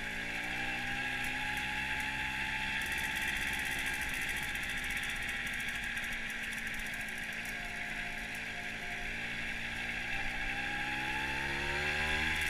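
1970s Fantic TI sports moped's small two-stroke engine running as it is ridden at low speed, its pitch rising at the start, easing off in the middle and climbing again near the end as the throttle opens.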